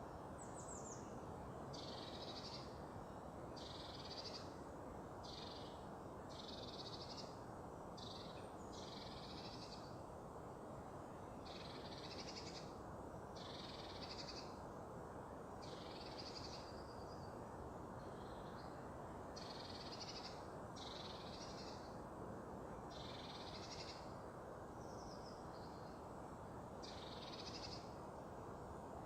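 Songbird singing short, high phrases, about one every one to two seconds, over a steady low rush of background noise.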